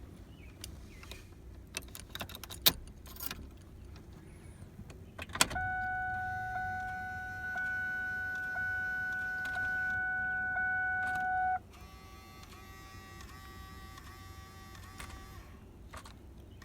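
A manual car that will not crank because the clutch pedal is not pressed. A few clicks from the key or start button come first, then a steady electronic warning tone from the dashboard that runs for about six seconds and cuts off suddenly. Softer repeated chimes follow, and the engine never turns over.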